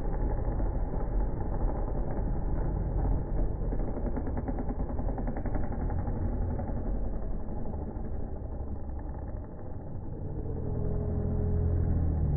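Supercross dirt bike engines running as the riders race around the track, several bikes at once in a steady, continuous noise. One engine grows louder near the end.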